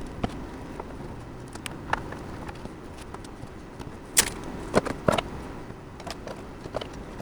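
Scattered light clicks and taps of computer hardware being handled and fitted together, with three sharper, louder clicks about four to five seconds in.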